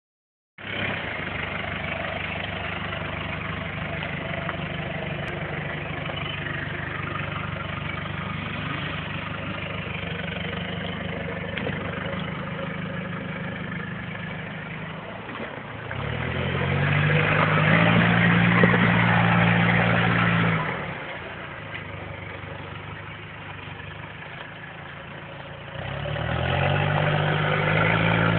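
Mitsubishi Pajero 4x4's engine running off-road: a steady low note, then revved up and held for about four seconds from just past the middle, dropping back, and revved up again near the end.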